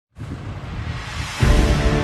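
Background music track that comes in loudly about one and a half seconds in, with steady held tones, after a noisy rushing hiss.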